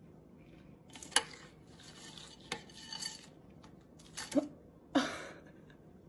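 Hard objects clinking and clattering: about six sharp knocks spread over a few seconds, the loudest about a second in and another near the end, over a faint hiss.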